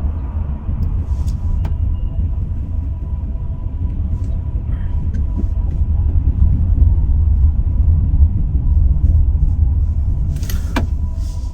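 Steady low rumble of a car's road and engine noise, heard from inside the cabin while driving slowly in city traffic.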